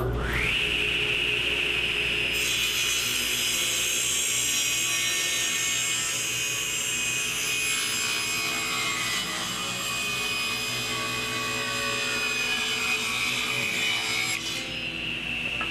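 Table saw switched on, its motor spinning up to a steady whine within half a second. About two seconds in, the blade starts ripping through a wooden plank fed on a taper jig, a harsh cutting noise that lasts about twelve seconds. Near the end the blade runs free again.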